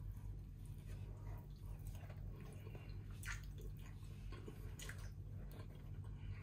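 Wet, sticky sounds of hands tearing apart saucy grilled chicken and of eating it: scattered soft smacks and squishes, a couple of sharper ones about three and five seconds in, over a steady low hum.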